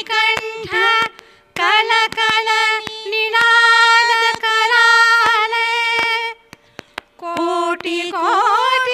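A woman's voice singing a slow Indian patriotic song, holding long notes with ornaments and a wavering note near the end, with a short pause about two-thirds of the way through.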